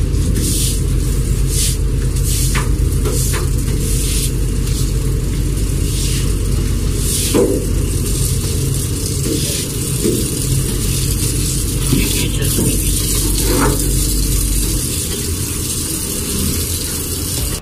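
Steady low rumble of a ship's deck machinery, with repeated short clanks and knocks over it.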